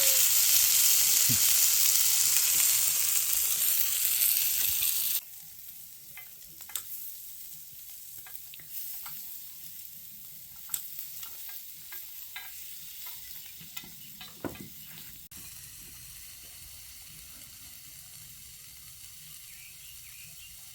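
Meat frying on a hot grill pan, a loud steady sizzle that cuts off abruptly about five seconds in. After it, a much quieter stretch with scattered light clicks and taps.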